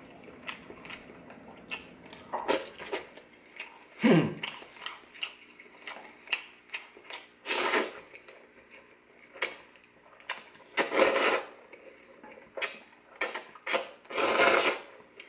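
Spaghetti slurped off chopsticks, with three long, loud slurps in the second half, the last the longest. Between them come wet chewing and small clicks.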